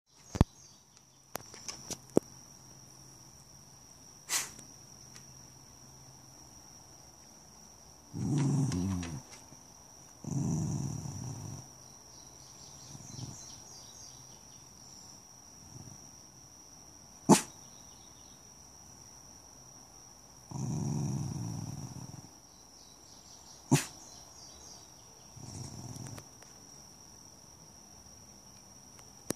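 Small dog growling in four low rumbles of a second or so each, with a few short sharp sounds between them. A steady high-pitched whine runs in the background.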